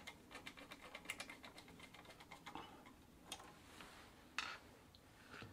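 Faint, irregular light clicks and ticks of hand tools and small metal parts being handled while fitting a bicycle mudguard, several a second in places.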